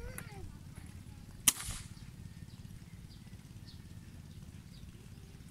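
A single sharp air-gun shot about a second and a half in, short and cracking, over a steady low background.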